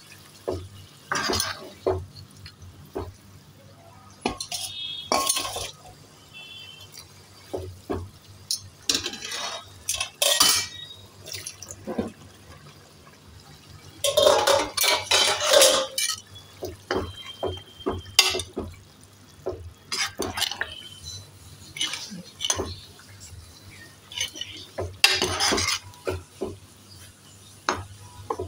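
Steel ladle stirring a pot of simmering chickpea curry, with irregular scrapes and clinks of metal against the non-stick pot.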